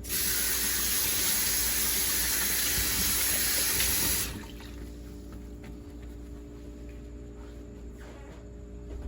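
Kitchen tap running in a steady stream for about four seconds, then shut off suddenly.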